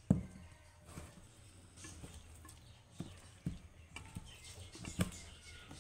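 Hand eating rice from a steel plate: fingers mixing and scooping rice, with a few sharp knocks and clicks against the plate at irregular intervals, the loudest at the very start.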